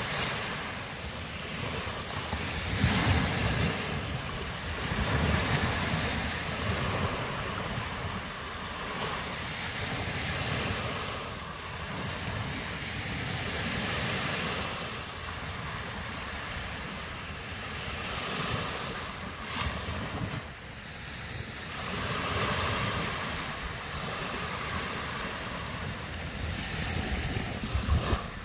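Sea surf washing onto the beach, surging and ebbing every few seconds, with wind buffeting the microphone in gusts.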